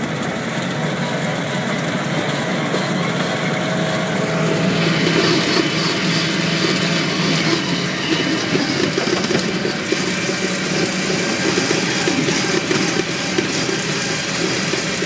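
Argo six-wheeled amphibious ATV's engine running under way, heard from the driver's seat, with knocks and rattles from the bumpy trail. About four seconds in the engine picks up and gets louder and harsher.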